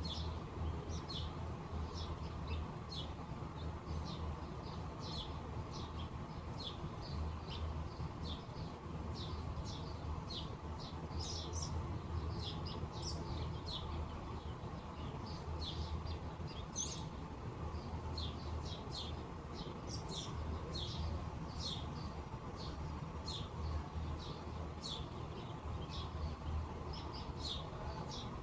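Small birds chirping: many short, high chirps in quick succession throughout, over a steady low background rumble.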